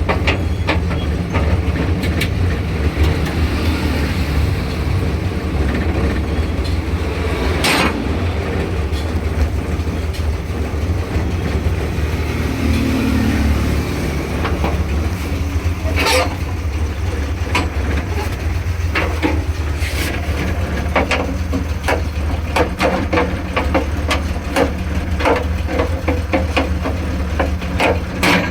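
Multicab's 12-valve engine running steadily at idle, with scattered sharp clicks and taps over it, more of them in the later part.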